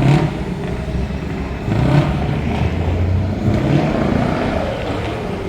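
Truck V8 engine with open exhaust pipes being revved hard in repeated blips, about one every two seconds, with the revs easing off near the end.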